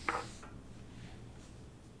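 One sharp click just after the start, followed by a brief scraping rustle, then only a faint low hum.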